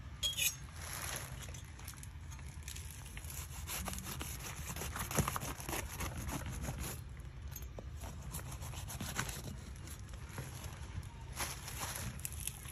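Knife blade sawing and scraping through the thick, knobbly rind of a whole jackfruit, with many small clicks as the blade catches on the rind's spikes. A steady low hum sits underneath.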